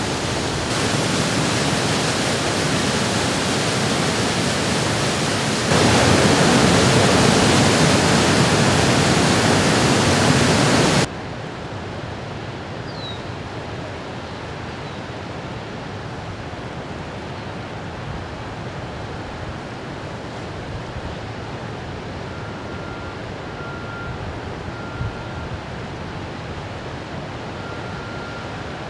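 Water blasting at full flow from the SDS valve outlet pipe at the base of a dam into the river: a steady rushing noise. It is louder for the first eleven seconds, then drops suddenly to a lower level.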